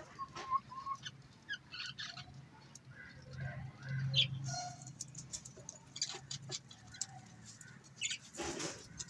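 Budgerigars chirping and chattering in short scattered calls, with small clicks, over a low steady hum. A brief rustling burst comes near the end.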